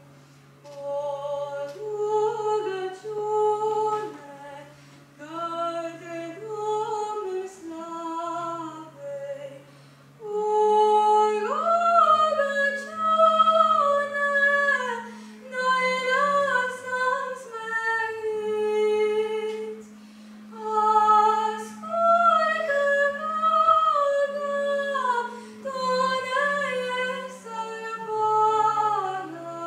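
A boy's unbroken voice singing a slow solo melody with long held notes, without instruments, over a low steady drone note that shifts pitch a few times and drops out briefly.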